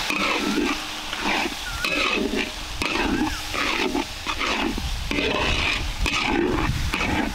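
A metal spatula scraping and stirring spice masala around a steel kadhai in repeated strokes, about two a second, with the paste sizzling lightly as it fries in oil.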